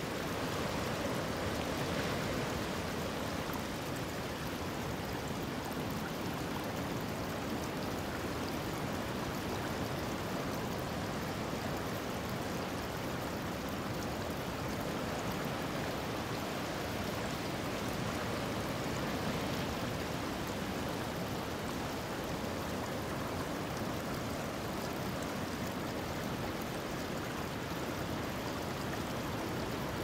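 Shallow stream of water running over beach sand toward the sea, breaking into small standing waves: a steady rushing, babbling flow.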